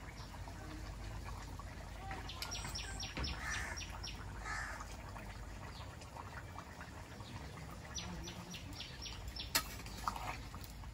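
Birds calling: two runs of quick, repeated high notes a few seconds apart, with a single sharp click near the end.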